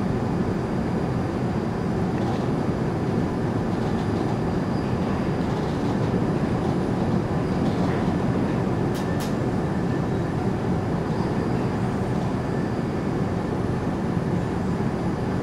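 Interior noise of an Incheon Airport Maglev UTM-03 car running along its guideway: a steady rumble and hiss with faint high steady tones and no wheel-on-rail clatter. Two faint short ticks come about nine seconds in.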